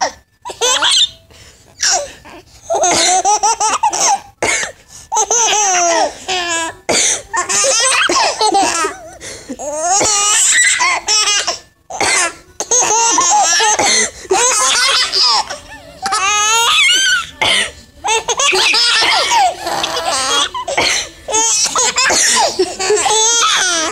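Seven-month-old twin babies laughing hard in repeated bursts of belly laughter, with short pauses between them.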